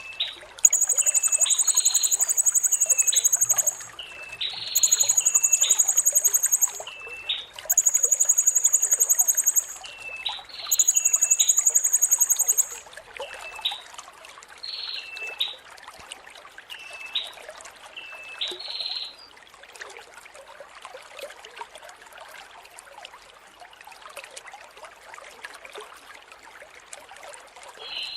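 Blue-crowned hanging parrot (serindit) singing a shrill, very high trill in five bursts of about two to three seconds each over the first half, with shorter chirps between them. A trickling stream runs underneath, and it is mostly the stream with faint chirps in the second half.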